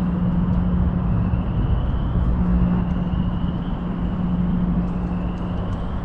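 Car engine and exhaust running steadily, a continuous low-pitched drone over a rumble.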